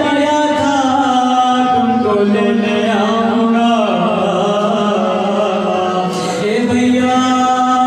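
Unaccompanied male voice chanting a noha, a Shia Muslim lament, amplified through a microphone, in long held notes that slide downward. A new phrase begins about six seconds in.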